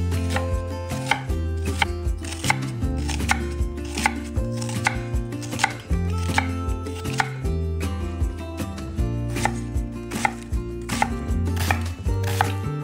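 Knife chopping food on a cutting board in quick, uneven strokes, about two or three a second, over background music with sustained bass notes.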